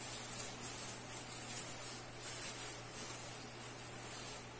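Soft, irregular rustling and crinkling of a plastic tinsel garland being handled by hand, over a steady low hum.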